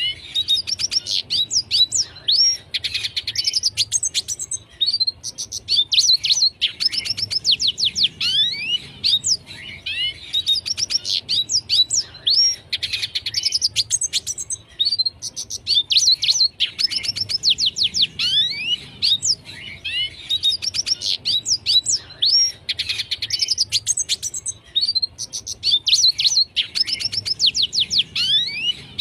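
Red siskin singing at length: rapid, high-pitched twittering phrases of chirps, sweeping whistles and trills, each lasting a couple of seconds and separated by short pauses.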